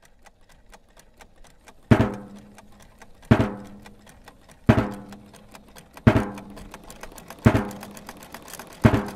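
Rapid, steady ticking with a low, ringing thump about every second and a half, six times in all, in an even rhythm.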